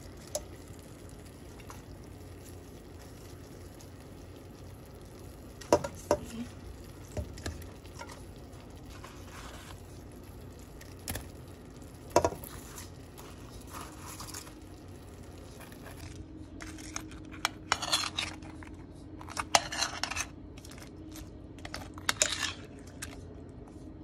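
Fried chicken pieces being put and turned in sauce in a metal pan, with a utensil clinking and scraping against the pan: a few scattered knocks at first, then a busy run of clinks over the last third.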